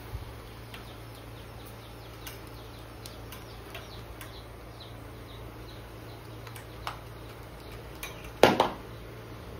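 Handling noise from a plastic socket box on a wire, over a low steady hum, with scattered faint high chirps and ticks. One loud knock with a quick second hit comes about eight and a half seconds in.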